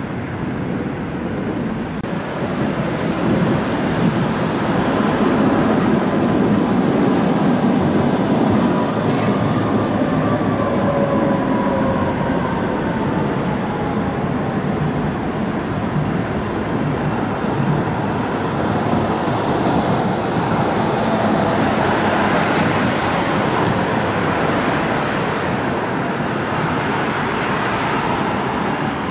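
Electric city trams running on street track among road traffic: steady rolling rumble of the trams and passing cars, with a thin tone that slowly falls in pitch around the middle. A rushing passby grows louder toward the end.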